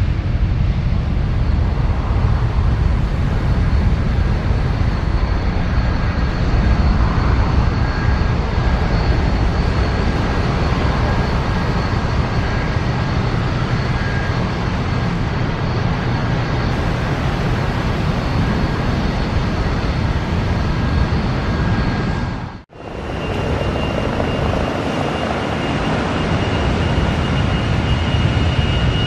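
Jet airliner engines running at high power during takeoff, a loud steady rumble with a high turbine whine on top. About three-quarters of the way through the sound cuts off sharply and resumes with a different, higher whine.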